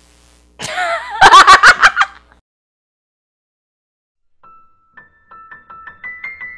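A young woman's loud burst of laughter, in quick pulses, about half a second in and lasting about a second and a half. After a quiet gap, a piano melody of repeated notes begins near the end.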